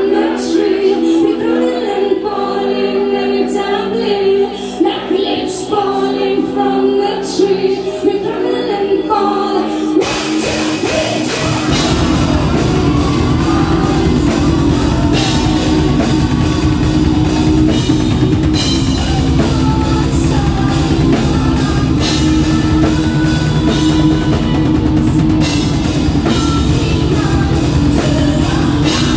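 Heavy metal band playing live: a sparser passage with singing, then about ten seconds in the full band comes in with pounding drums and guitars, heavy and dense to the end.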